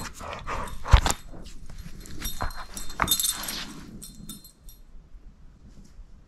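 A dog shifting about close by: rustling and scrabbling, with a sharp thump about a second in and a brief metallic jingle around three seconds in. It goes quieter after about four seconds.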